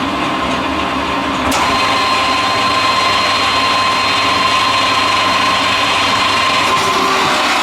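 EMCO 11 lathe running at 410 RPM with a steady whir and a high steady whine. A single click about one and a half seconds in, after which it runs slightly louder.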